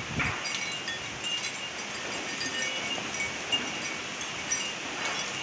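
Heavy rain falling steadily in a windy downpour, with short high-pitched chirp-like tones and a few brief sharp ticks scattered through it.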